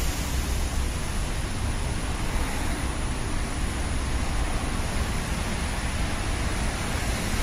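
Steady outdoor ambient noise: an even hiss with a low rumble underneath and no distinct events.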